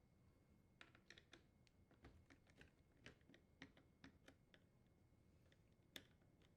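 Faint small metallic clicks and ticks of a nut driver working screws out of a dishwasher door hinge's mounting, a quick irregular run of them in the first few seconds and one sharper click near the end.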